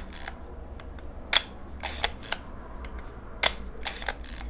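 1960 Leica M3's cloth focal-plane shutter fired twice, each firing a sharp click followed by a few lighter clicks. It is set to 1/15 s, the speed at which the repairer says this shutter gives a slight squeal.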